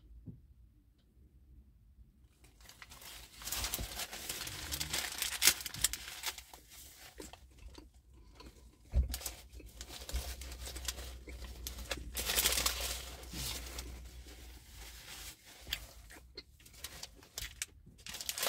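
Paper burger wrapper crinkling and rustling as it is handled and folded back, starting a few seconds in, with bites and chewing of the burger close to the microphone.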